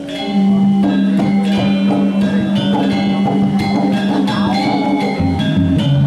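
Balinese gamelan playing: quick ringing strokes on bronze metallophones and drums over a long held low tone, which drops in pitch near the end. The music comes back in loud just after a brief lull at the start.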